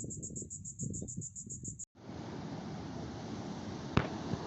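An insect chirping in a fast, even pulse, about seven chirps a second, over a low wind rumble, cut off abruptly just under two seconds in. Then a steady hiss of wind and surf on the beach, with a single click about four seconds in.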